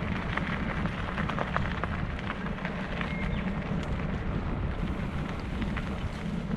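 Riding a mountain bike along a gravel dirt trail: wind noise on the microphone, with the tyres crunching over the gravel and many small irregular clicks and rattles.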